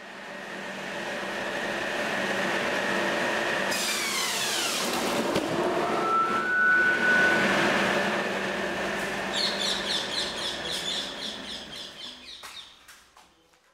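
Electric circular saw running in its drum-shaped hood and cutting through a banana stem: a steady whine with a sharp downward sweep in pitch a few seconds in. A rapid ticking comes in near the end as the sound fades out.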